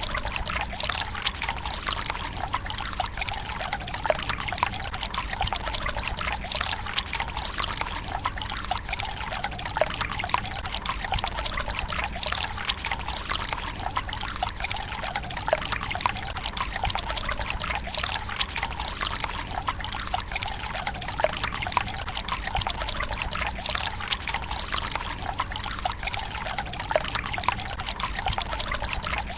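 Water from a bamboo spout running steadily into the stone basin of a Japanese tsukubai, a continuous trickling splash with many small drips.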